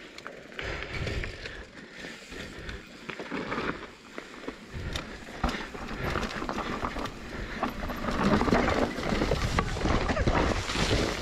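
Downhill mountain bike running fast over a rough dirt trail: tyres rumbling over roots and rocks, with a constant clattering of chain and frame. It grows louder and rougher in the last few seconds as the rider crashes.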